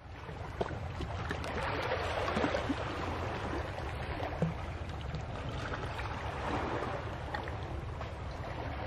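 Shallow seawater lapping and sloshing against rocks close to the microphone, a steady watery wash with small splashes and trickles.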